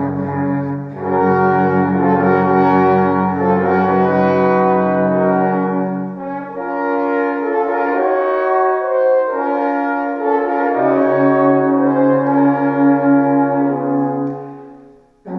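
Alphorns and French horns playing together in long held, overlapping chords. The lowest notes drop out about halfway through, a new low note comes in later, and the chord dies away near the end.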